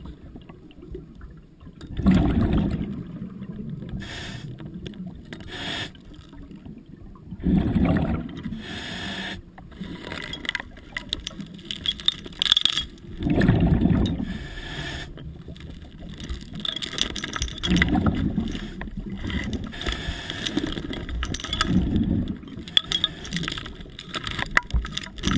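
Underwater breathing of a scuba diver through a regulator: a rumble of exhaled bubbles about five times, every four to six seconds, with fainter noise in between.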